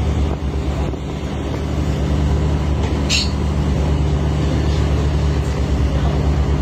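A ship's engine running steadily: a low, evenly pulsing drone. A brief hiss cuts in about three seconds in.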